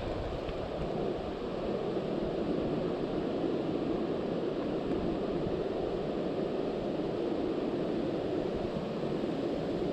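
Steady wind buffeting the microphone: an even, low rush with no distinct events.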